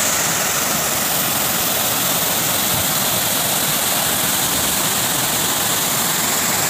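Steady rush of runoff water pouring down a rock face and streaming over fallen rocks and debris, loud and unbroken.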